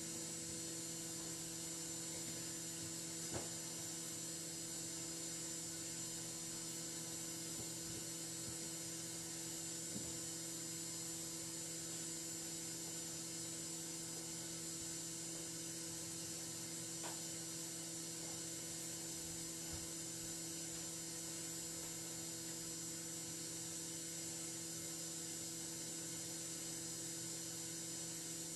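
Steady electrical hum and hiss with a few faint clicks: the background noise of a silent film's soundtrack, with no recorded sound.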